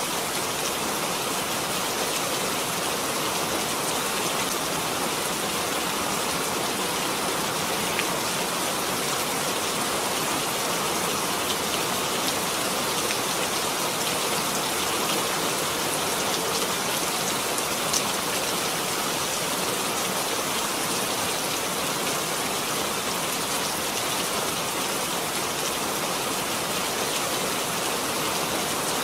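Steady rain, a dense even hiss of falling rain with a few single drops ticking out, one a little louder about 18 seconds in.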